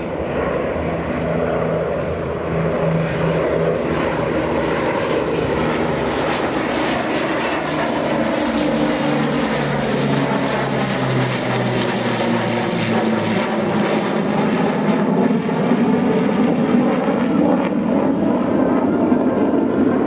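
Display aircraft flying past, a steady engine drone whose pitch drops during the middle of the pass as it goes by.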